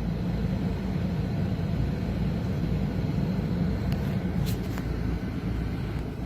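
Steady low rumble, with a few faint clicks about four to five seconds in.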